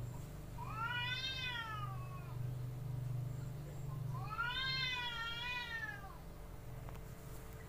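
Domestic cat yowling twice in an aggressive standoff with another cat: two long drawn-out wails, each about two seconds, rising and then falling in pitch, the threat call of a cat about to fight.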